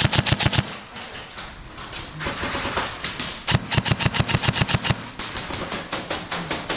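Airsoft guns firing on full auto: rapid strings of sharp clicking shots in bursts, one near the start and longer ones from about halfway in to the end.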